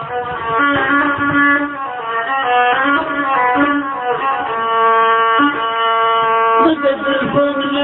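Instrumental music with strings playing a melody: the introduction to an Arabic song, before the singing comes in. The texture changes about two-thirds of the way through.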